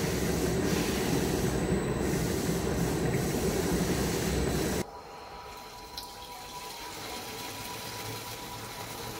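Lifting-type vacuum emulsifying mixer running, its agitator and homogenizer churning liquid in the vessel with a loud, steady, low-pitched noise. About five seconds in it drops sharply to a quieter steady hum with a faint steady tone, while liquid runs out of the discharge valve.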